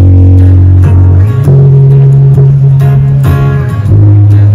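Busker's acoustic guitar strumming chords over held deep bass notes that shift twice, with no singing.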